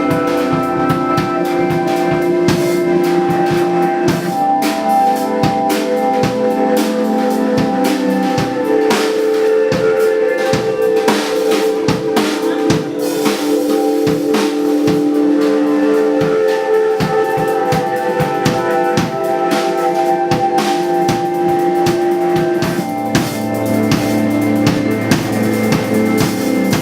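Live band playing: a busy drum kit, with snare and bass drum hits, over sustained chords.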